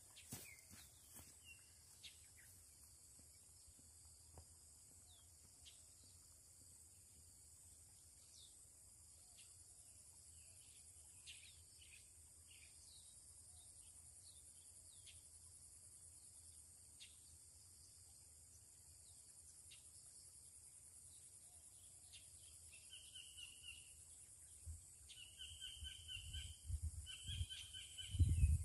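Faint outdoor ambience of insects buzzing steadily at a high pitch, with scattered short falling bird chirps. In the last several seconds a bird's trilled call repeats in bursts of about a second each, and a few low thumps come near the end.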